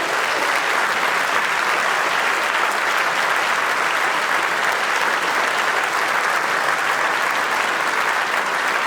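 A large congregation applauding steadily, a dense sustained clapping.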